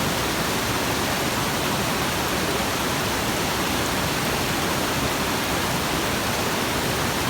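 Waterfall rushing steadily, an even, unbroken hiss of falling water.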